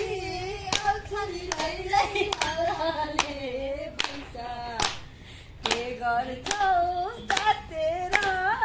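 Hands clapping a steady beat, a little faster than once a second, while a person sings along. The singing pauses briefly about halfway through.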